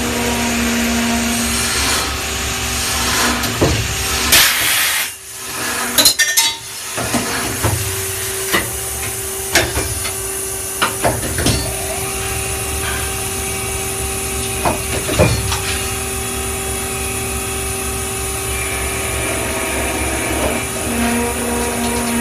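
25AV front-feeding automatic lathe running through its cycle: a steady machine hum and whine, with sharp metallic clacks and knocks now and then and a short hiss about four seconds in.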